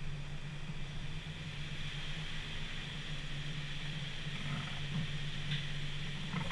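A vehicle's engine running at a steady low hum as it creeps slowly forward, heard through a sealed waterproof camera housing on the hood. A couple of faint ticks come near the end.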